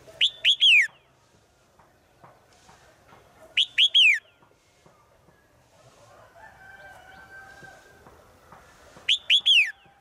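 Caged red-whiskered bulbul singing three short phrases a few seconds apart, each a quick run of about four falling whistled notes; the keeper presents it as a female calling to males.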